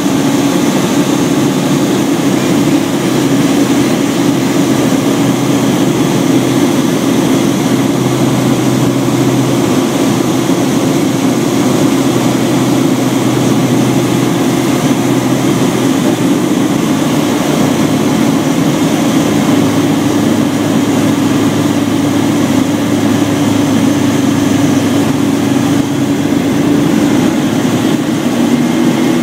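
Steady, loud drone of the Long-EZ chase plane's piston engine and pusher propeller, mixed with rushing airflow, heard from on board in level flight.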